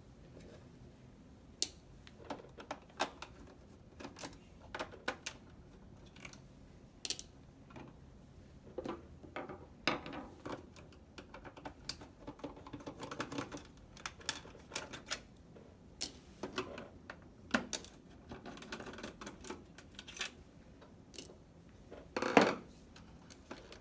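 Irregular small clicks, taps and short rattles of screws and plastic and metal parts as the power supply is taken out of an opened PS4 console, with a louder clatter about 22 seconds in.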